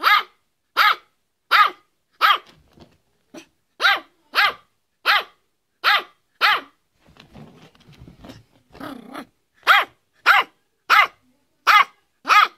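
Yorkshire terrier barking in a quick, steady run of short, high-pitched yaps, about one and a half a second. About seven seconds in the barking breaks off for a couple of seconds of quieter, low, rough sound, then starts up again at the same pace.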